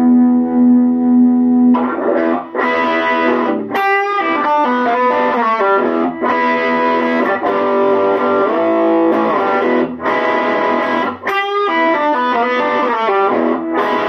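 Donner DJP-1000 semi-hollow electric guitar played through a Monoprice 5-watt Stage Right tube amp with an overdriven tone. One note is held for about two seconds, then a blues lead run follows, with two quick wavering flurries.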